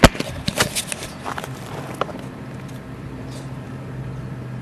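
A few sharp clicks and scuffs in the first two seconds, then a steady low hum of an engine running.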